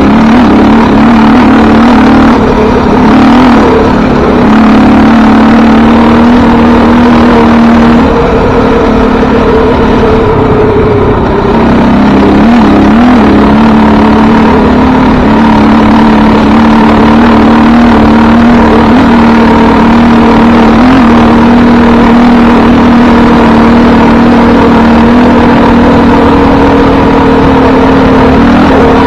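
Loud vehicle engine running steadily under way on a dirt trail. Its note changes and the level drops about eight seconds in, then it picks back up near twelve seconds and holds steady.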